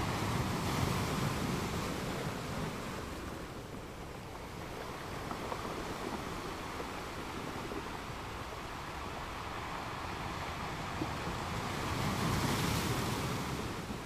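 Steady rain with gusting wind, the rushing swelling louder about a second in and again near the end.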